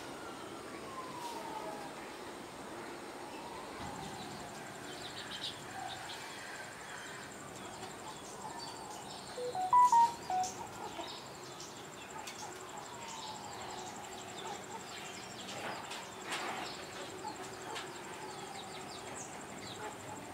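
Outdoor ambience with birds calling: slow falling calls recur every few seconds, and a short burst of louder chirps comes about halfway, over a faint steady high-pitched hum.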